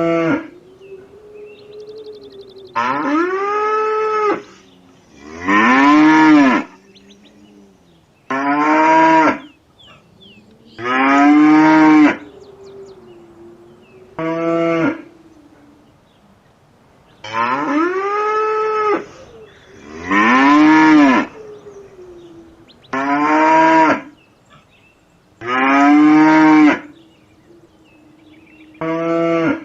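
Cows mooing again and again: about eleven loud, drawn-out moos, each rising and then falling in pitch, with quieter low moos in between.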